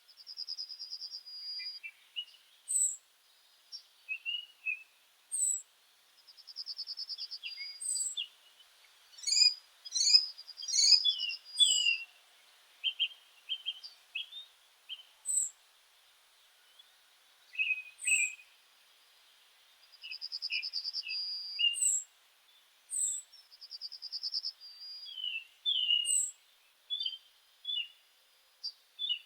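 Several meadow birds singing together: a thin high falling note repeats every two to three seconds, over buzzy trills about a second long and scattered chirps, with a louder flurry of calls near the middle.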